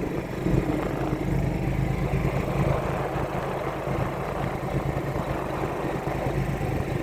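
Golf cart driving along, its motor making a steady low drone with a rushing noise over it.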